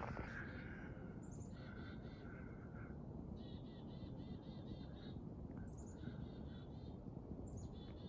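Small birds calling in repeated short runs of high, quick notes, several runs in a row, over a steady low background rumble.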